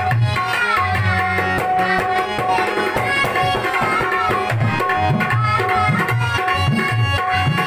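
Dholak drum playing a steady beat under held harmonium notes, the accompaniment of a Maithili nachari (devotional song to Shiva). A boy's voice sings in places.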